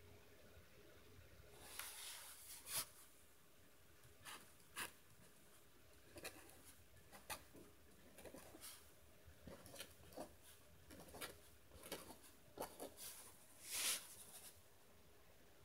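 Pen writing on paper: a run of faint, short scratching strokes at an uneven pace as words are written by hand, with a louder scrape about three seconds in and another near the end.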